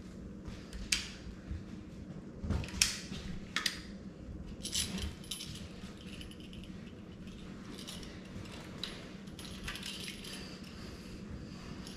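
Small metallic clicks and scrapes of a spline roller tool working the screen spline into the channel of an aluminium screen-door frame at a corner, with sharp clicks about one and three seconds in. A steady low hum runs underneath.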